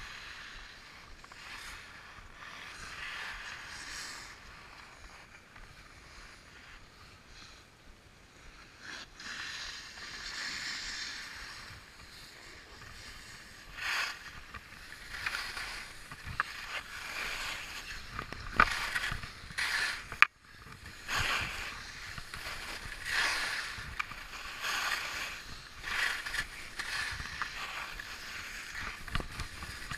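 Skis carving and scraping over packed, groomed snow on a downhill run, a hiss that swells with each turn, the turns coming faster and louder in the second half, with a couple of sharp knocks past the middle.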